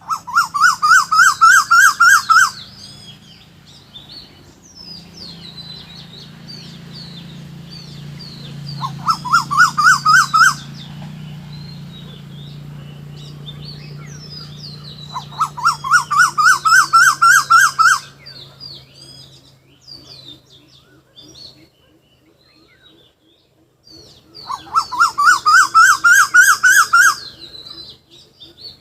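A bird calls in four loud bouts of rapid repeated rising notes, about four notes a second, each bout lasting two to three seconds. Between the bouts, smaller birds chirp faintly at higher pitch over a low steady hum.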